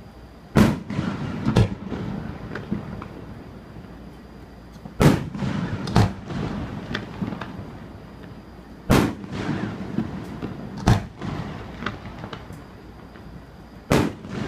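Aerial fireworks shells bursting: about seven loud booms, some a second apart, others several seconds apart, each followed by a rolling echo.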